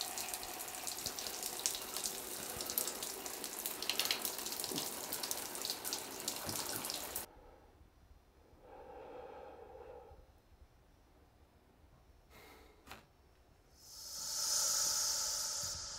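Shower water spraying steadily onto a man and the tiled stall, stopping abruptly about seven seconds in. Then it is quiet apart from two faint clicks and a loud breath near the end.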